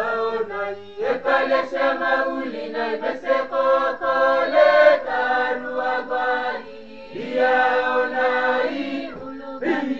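Group of voices singing a Peroveta hymn in harmony with no instruments, long held phrases with short breaks about a second in and again near seven seconds.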